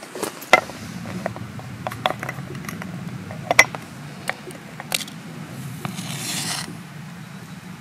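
Small metal clicks and clinks as camp-stove parts are handled, then a match struck on its matchbox about six seconds in, a short hissing scrape as it flares.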